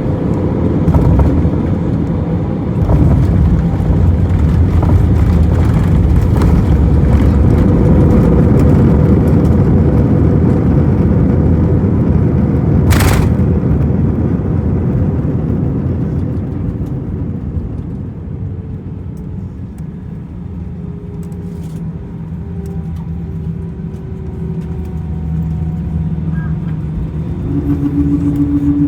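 Jet airliner cabin noise heard at a window seat: a steady roar of engines and rushing air. It is loud for the first half, eases off over several seconds, then swells again with a steady hum near the end. A short sharp hiss comes about halfway through.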